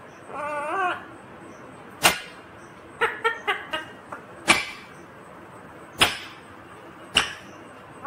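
Indian ringneck parrot calling: a brief warbling call at the start, then sharp, very short squawks about every one to one and a half seconds, with a quick cluster of them around three seconds in.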